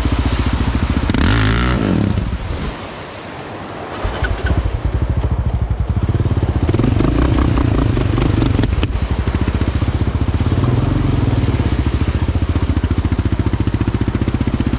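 Quad bike engine running on a ride: it revs up and falls back about a second in, goes quieter for a moment around three seconds in, then runs steadily on.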